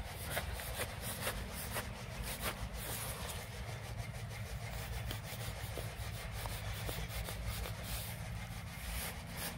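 A knife blade digging and cutting into dry soil and roots around a eucalyptus seedling: repeated short scraping and cracking strokes.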